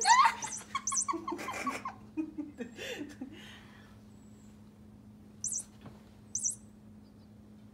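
Electronic squeaking toy mouse chirping in quick, high squeaks as a cat paws at it, busy for the first few seconds, then two short high squeaks about a second apart near the end.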